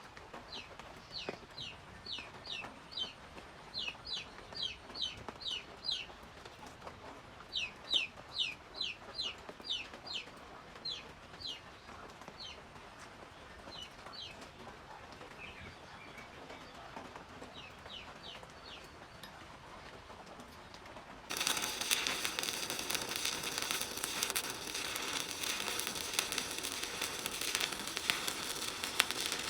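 A bird chirping in bursts of short, quick chirps falling in pitch, about two a second. About 21 seconds in, a stick-welding arc strikes and crackles steadily and loudly.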